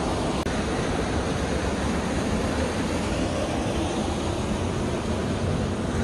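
Mountain stream cascading over rocks like a small waterfall: a steady rushing of water.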